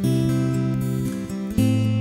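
Acoustic guitar music, strummed chords held and let ring, with a new chord struck at the start and another about one and a half seconds in.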